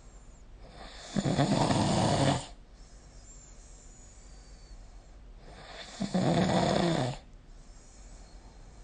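A sleeping person snoring: two snores, each a little over a second long, about five seconds apart.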